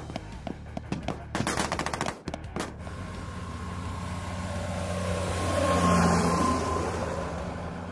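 Rifle and machine-gun fire: scattered single shots, then a rapid automatic burst and a few last shots in the first three seconds. After that an eight-wheeled Stryker armored vehicle's diesel engine and tyres grow louder as it drives past, loudest about six seconds in, then fade.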